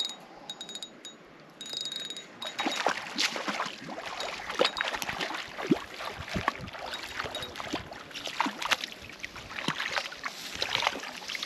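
A hooked American shad thrashing and splashing at the water's surface as it is played in close to the bank on a spinning rod. From about two and a half seconds in there are many sharp, irregular splashes, and brief fine ticking comes at first.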